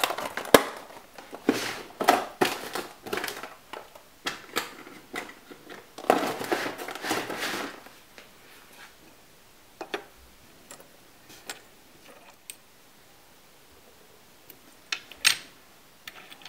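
Small die-cast toy car parts being handled and fitted on a hard surface: a sharp click, then a run of clicks, taps and rustling through the first half, thinning to a few single clicks.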